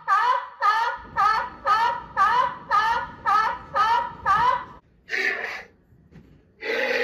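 A seal calling: about nine short pitched calls in a steady run of about two a second, then after a brief pause two longer calls.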